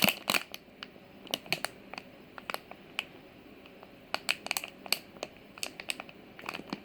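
Blind-bag packaging handled in the hands: scattered light crinkles and clicks, busier near the start and near the end.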